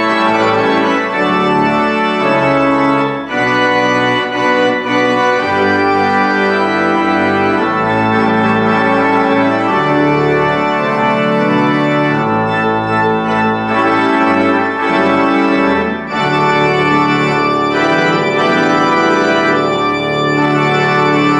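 Pipe organ playing full sustained chords that change every second or so, with low bass notes moving beneath them.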